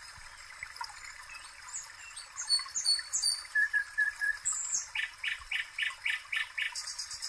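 Birds chirping and calling over a steady trickle of running water: a short run of five even notes about halfway, a series of quick repeated calls after it, and a fast buzzy trill near the end.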